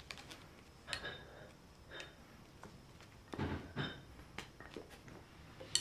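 Scattered scuffs, taps and knocks of a cat pouncing and scrambling around a kettlebell on a rug after a feather toy, with the heaviest thumps about three and a half seconds in and a sharp click near the end.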